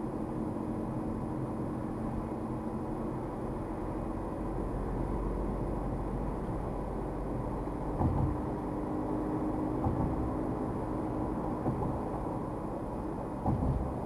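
Steady road and engine noise of a car driving at speed, heard from inside the cabin. In the second half there are a few short, low thumps a second or two apart.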